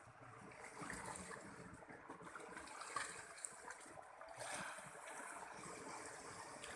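Faint, steady rush of flowing water, with a few small ticks.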